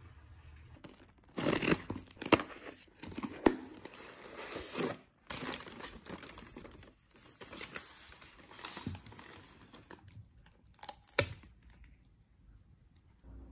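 Packing paper and plastic wrap crinkling and rustling in irregular bursts as a shipped potted plant is unwrapped by hand, with some tearing. It starts about a second in and stops shortly before the end.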